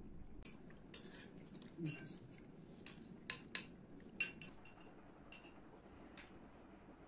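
Metal spoons clinking and scraping against glazed ceramic bowls as several people eat, an irregular scatter of light clinks, a few with a short ring.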